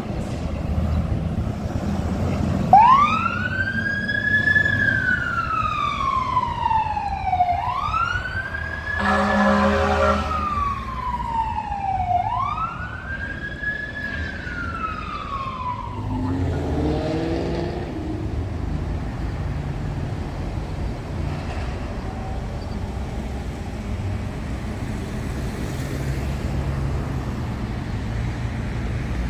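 Ambulance siren sounding a wail: three slow cycles, each rising quickly and falling slowly. A short horn blast comes about nine seconds in. After about sixteen seconds the siren stops and low engine and traffic rumble carries on.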